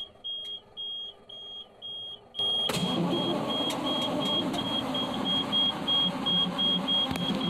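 A dashboard warning buzzer beeps about twice a second. About two and a half seconds in, the starter engages and cranks the Cat 3208 mechanical V8 diesel steadily while the buzzer keeps beeping. The engine turns over without firing or catching: a crank-no-start condition, with the injection pump delivering almost no fuel.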